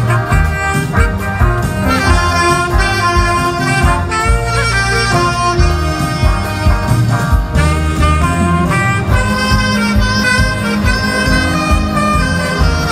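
Saxophone-led jazz band playing a melody over a steady drum beat.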